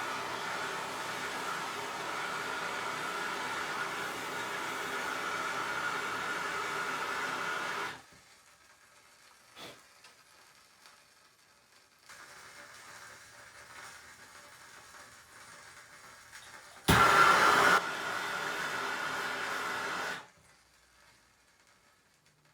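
Plumbing torch flame hissing steadily while heating copper pipe fittings for soldering. It cuts off about eight seconds in, comes back fainter, flares up suddenly and louder for about a second, then cuts off again near the end.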